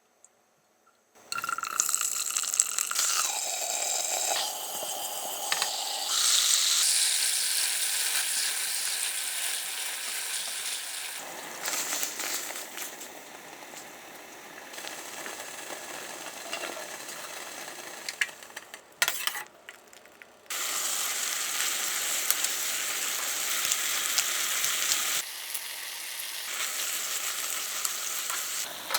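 Food sizzling in a frying pan, a steady hiss with occasional clicks of stirring, broken into several short clips by abrupt edits.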